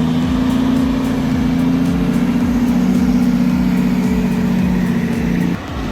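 Heavy truck's diesel engine running steadily under load, a loud low drone that breaks off abruptly near the end.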